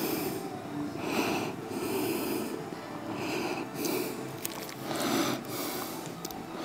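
A man breathing hard while straining through seated leg curl reps: a forceful, hissing exhale about once a second.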